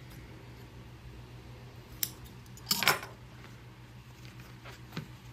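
Light metallic handling sounds of scissors and small tools on a sewing-machine table: a sharp click about two seconds in, a short rattle just before three seconds, and a couple of small ticks near the end, over a faint steady low hum.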